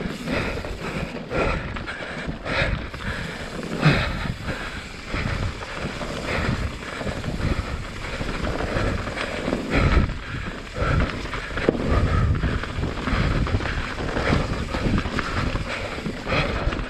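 2019 YT Jeffsy mountain bike riding fast down a wet, rocky dirt singletrack: tyres rolling over dirt and loose stones, with the chain and frame rattling and wind on the microphone. Sharper knocks about four seconds in and again about ten seconds in as it hits rocks.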